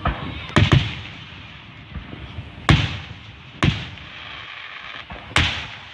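Fireworks shells bursting overhead: about five loud booms, two in quick succession near the start and the rest a second or two apart, each fading with an echo.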